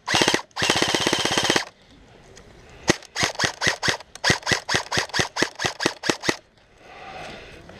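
Airsoft replica guns firing: a full-auto burst lasting about a second and a half, then after a pause a string of about twenty shots at roughly six a second.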